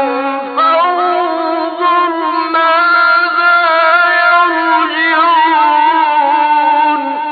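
A man's solo voice in melodic Quran recitation, holding one long ornamented phrase that winds up and down in pitch and tails off near the end.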